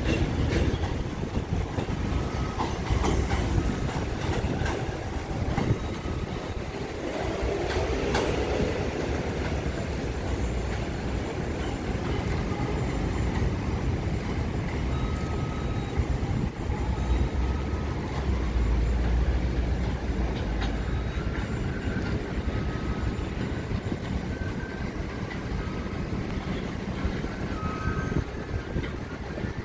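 R68 subway train passing and drawing away along an elevated steel track: sharp wheel clicks over the rail joints at the start as the last cars go by, then a steady rumble as it recedes.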